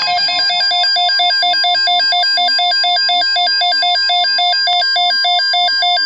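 Loud electronic emergency alert tone that announces a severe thunderstorm watch. A steady tone near 1 kHz runs under a fast warble of higher tones that switch back and forth about five times a second.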